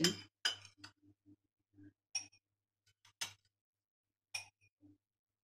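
A metal spoon clinking against dishes as ground biscuit crumbs are scooped from a small bowl into a drinking glass: four short, sharp clinks about a second apart.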